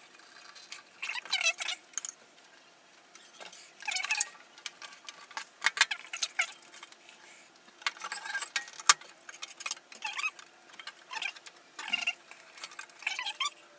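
Small metal parts being handled and screwed in while a motherboard is fitted into a PC case: irregular clicks and rattles with short squeaks, and one sharp click about two-thirds of the way through.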